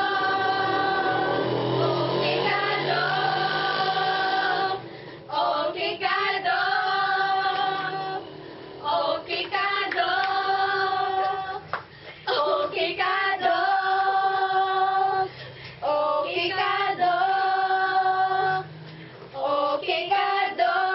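Female voices singing together, in phrases of long held notes broken by short pauses.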